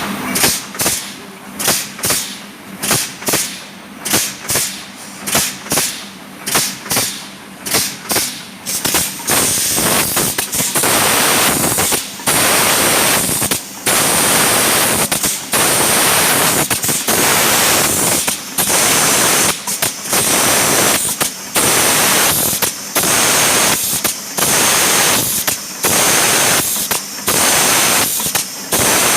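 Pneumatic hissing from an automatic polyurethane foam filling machine. Quick air bursts come about twice a second for the first several seconds, then a near-continuous loud hiss broken by brief gaps about every second and a half.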